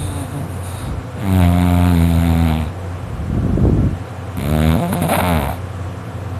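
A sleeping boy snoring really loudly: two long, buzzing snores about three seconds apart, one at each breath, with a breathy exhale between them.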